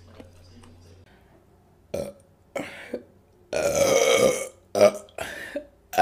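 A woman burping: one long, loud belch a little past the middle, lasting about a second, with a few short, quieter sounds before and after it.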